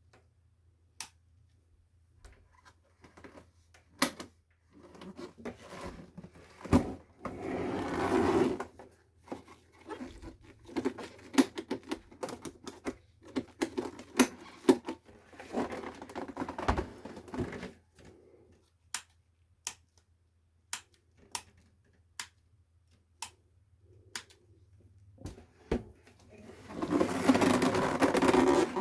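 Hands working on the plastic housing of an electric heater: scattered sharp clicks with three stretches of scraping and rattling, the loudest about eight seconds in and near the end.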